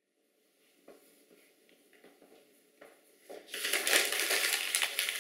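A few faint scratches and light taps of a pencil on paper, then from about three and a half seconds a sheet of paper crumpled in the hands with a loud crinkling.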